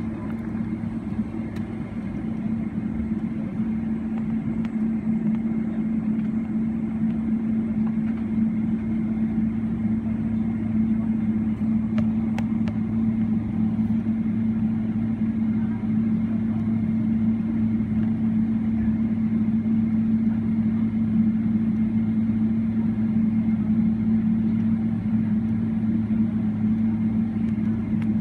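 Steady cabin drone inside a Boeing 777-300ER taxiing, with its GE90-115B engines at taxi idle. A low hum with a steady tone runs through it, growing slightly louder over the first few seconds.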